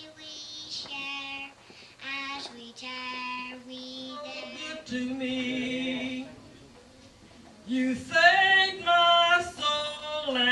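A high voice singing a gospel revival song, with long held notes, growing louder about eight seconds in.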